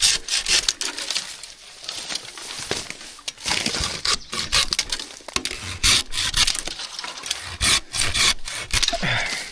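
Dry branches and brush crackling, snapping and scraping as someone pushes through on foot, in quick irregular cracks close to the microphone.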